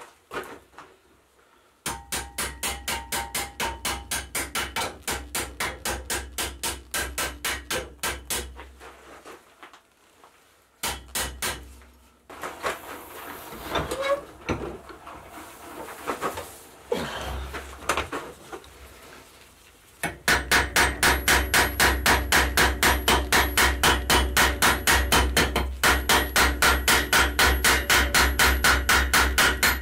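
Blacksmith's hand hammer striking hot steel bar stock on an anvil in quick, even blows, about four to five a second, with a ring. A long run of blows is followed by a pause with a few scattered lighter knocks. A louder, faster run of hammering starts about two-thirds of the way through.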